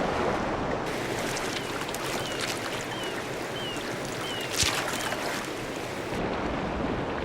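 Steady rushing of a river waterfall. About six short, high, falling chirps come in the middle, roughly two a second, and one sharp hit like a splash sounds about four and a half seconds in.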